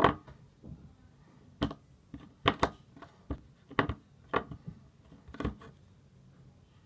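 Small ball of old, hardened foam-bead slime pressed onto a wooden table and squeezed in the fingers, its beads giving a string of sharp crunchy crackles, a loud one at the start and then roughly one every half second.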